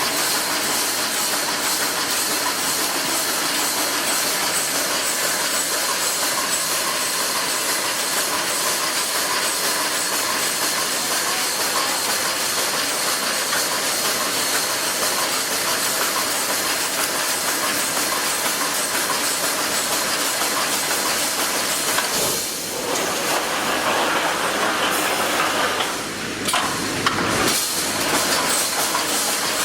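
Wire mesh panel welding machine running on test: a steady, dense hissing machine noise with a faint regular beat, dipping briefly twice in the last third.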